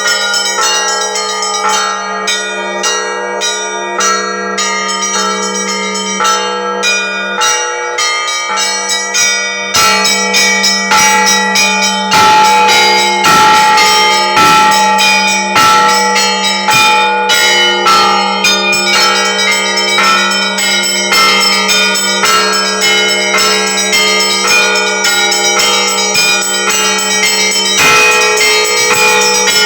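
Russian Orthodox church bells ringing a peal: several bells of different pitches struck in quick succession over a steady low bell tone. The ringing grows louder and fuller about ten seconds in.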